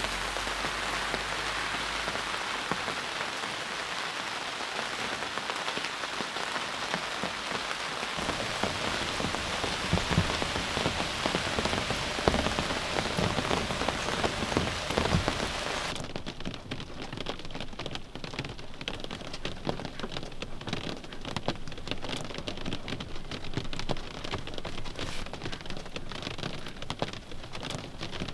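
Heavy rain pouring steadily as a dense hiss. About 16 seconds in, the sound changes abruptly to less hiss and more distinct individual drops pattering.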